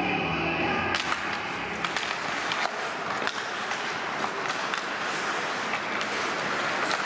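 Ice hockey play heard from the stands: skates scraping the ice and sharp clacks of sticks on the puck over a steady rink hiss. A held tone cuts off about a second in.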